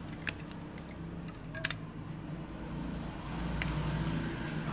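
A few sharp little clicks and taps as a rubber-banded smartphone is handled and pressed in the hands, over a steady low hum.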